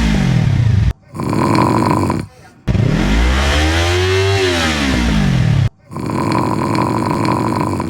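Motorcycle revving, cut back and forth with snoring in hard edits: about a second in, a short clip of snoring; then one long rev of a Yamaha R3's parallel-twin engine through an Akrapovič exhaust, rising and falling back over about three seconds; then snoring again near the end.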